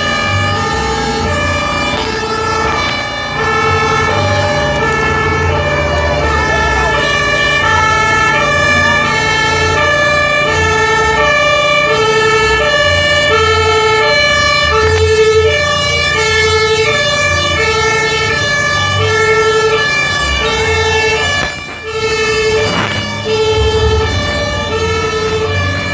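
Loud music: a repeating pattern of short high notes over a pulsing bass beat, breaking off briefly about three quarters of the way through.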